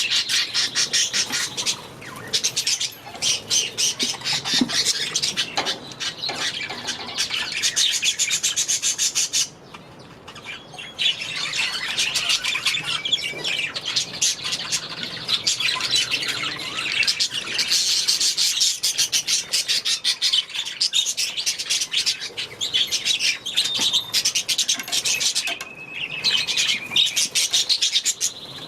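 A flock of budgerigars chattering, a dense run of fast high chirps and warbles, with a brief lull about ten seconds in.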